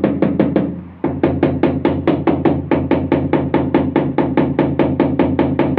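Rubber mallet tapping rapidly on a large ceramic wall tile, about five or six knocks a second, bedding it into the mortar behind it. The tapping breaks off briefly about a second in, then carries on.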